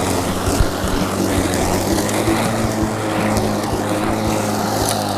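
Greenworks cordless battery-powered push mower running steadily as its spinning blade cuts grass, a rushing whir with a few sharp ticks.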